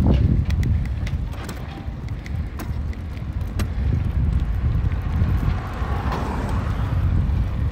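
Wind buffeting the microphone of a bike-mounted camera over a steady low road rumble while cycling slowly, with scattered light clicks. A car passes close by about six seconds in, a rising and falling rush.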